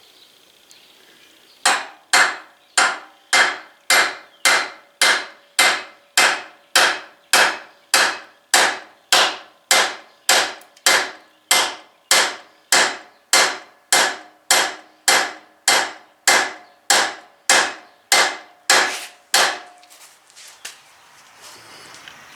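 Steady hammer blows, about two a second, on the aluminium driver of a bearing install kit, each strike ringing briefly. They are driving the new hub into the wheel bearing of a Mk4 Golf. The strikes start about a second and a half in and stop about a second before the end.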